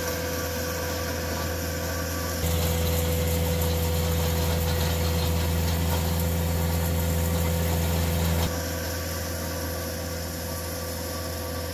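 CAT 259D3 compact track loader's diesel engine running steadily under load while it drives a power rake across a gravel driveway. It grows louder about two seconds in and drops back near the end.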